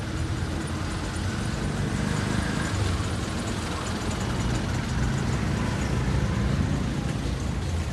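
Motor vehicle engines running at low speed in street traffic: a steady low rumble with no single event standing out.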